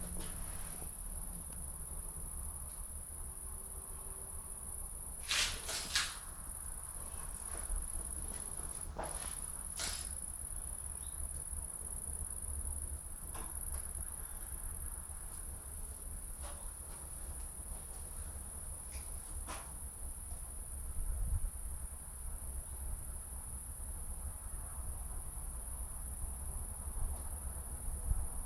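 Outdoor ambience: a steady high-pitched whine with a low rumble under it. A few short sharp clicks and knocks stand out, the loudest a pair about five to six seconds in.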